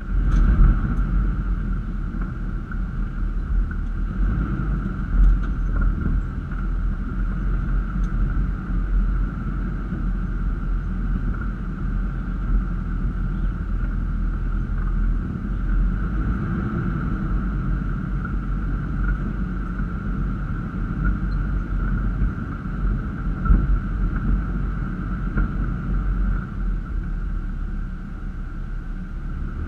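Toyota Land Cruiser FZJ80's 4.5-litre straight-six running at low speed over a rough dirt trail, giving a low, uneven rumble of engine and tyres, with a steady higher hum over it.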